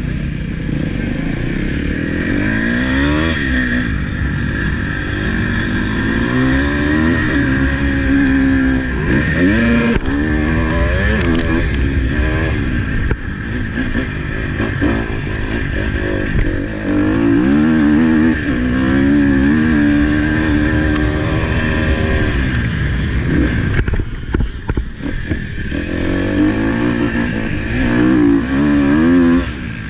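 KTM motocross bike engine revving hard and easing off over and over as it is ridden round a dirt track, pitch climbing and dropping repeatedly. Heard from a helmet chin-mount camera with wind rush over the microphone. The engine eases off briefly about three quarters of the way in before it climbs again.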